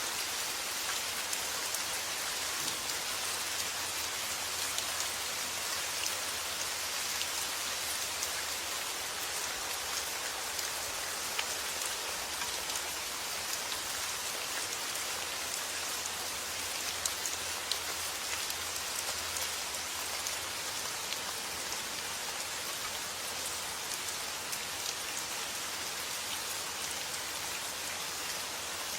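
Steady summer rain falling on a surface, an even hiss dotted with many individual drop ticks.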